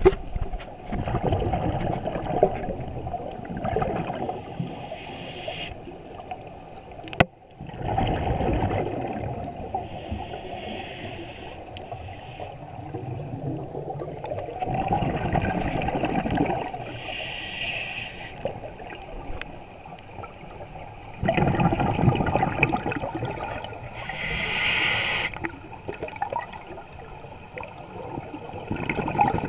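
Scuba diver breathing through a regulator, heard underwater through the camera housing. Four breaths about seven seconds apart: each is a long bubbling rush of exhaled air followed by a shorter, higher hiss as the diver inhales. There is a sharp click about seven seconds in.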